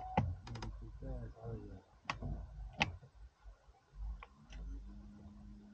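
A few separate sharp clicks and taps, most likely from the anglers handling rods and tackle in the boat. Near the end a low steady hum rises in.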